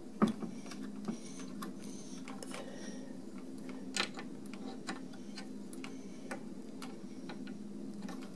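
A metal pin punch clicking and tapping against the cam of a Seeburg 100 jukebox mechanism while driving out the cam's pin: scattered light metallic clicks, the sharpest about a quarter second in and another about four seconds in, over a steady low hum.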